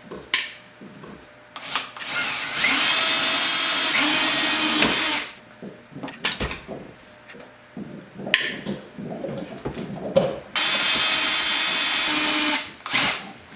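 Power drill boring out the small hole in a threaded collar. It runs in two steady bursts of about three and two seconds, with short knocks and clicks of handling between them.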